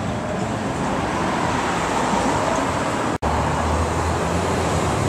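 City street traffic noise, a steady wash of passing road vehicles. It drops out abruptly for an instant about three seconds in, and after that a steady low engine drone sits underneath, like a vehicle running nearby.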